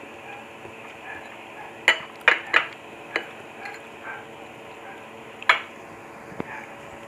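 A metal fork clinking against a small ceramic soup bowl: about five sharp clinks between two and five and a half seconds in, the loudest near the start and near the end.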